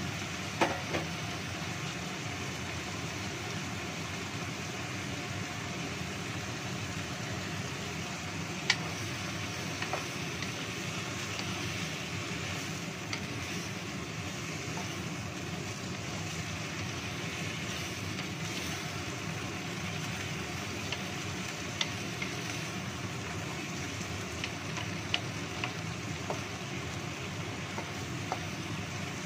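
Vegetables stir-frying in a wok with a steady sizzle and hiss, while a wooden spatula stirs and scrapes through them. A few sharp knocks of the spatula against the pan, the loudest about nine seconds in.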